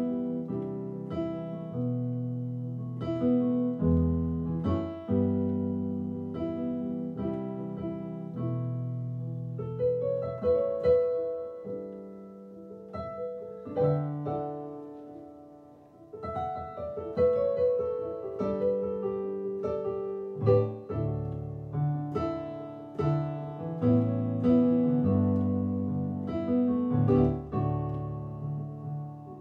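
Solo piano played on a digital keyboard: an instrumental passage of held chords with a melody on top. It fades down about halfway through, then builds back up.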